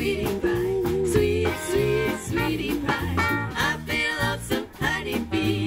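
Live swing band playing: a trio of women singing over acoustic guitar, bass guitar, drums and a horn section of trumpet, trombone and saxophone.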